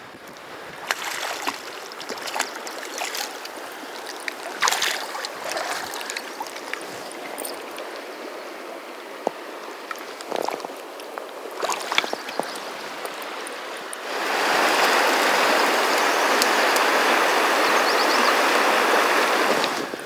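Running river water with scattered splashes and knocks as a landed brown trout is handled at the water's edge. About fourteen seconds in, a louder, steady rush of river water takes over.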